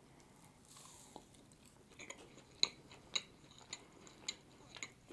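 Close-miked bite into a slice of frosted carrot cake, then soft chewing with faint wet mouth clicks, about two a second.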